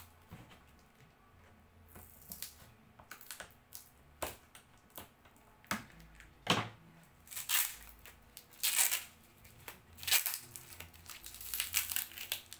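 Dry wrapping crinkling and crackling in irregular bursts as it is crumpled and pulled away by hand, with several louder crunches in the second half.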